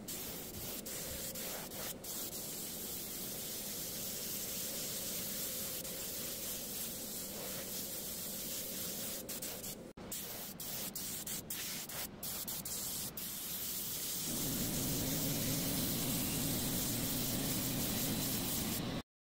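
Steady hiss of paint being sprayed onto a carved MDF panel. About fourteen seconds in the spray grows louder and deeper, then it cuts off abruptly.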